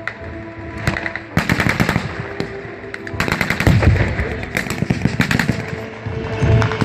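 Rapid strings of automatic-weapon fire with blank rounds, shots close together in several bursts. A heavier low blast from a pyrotechnic charge comes near the end.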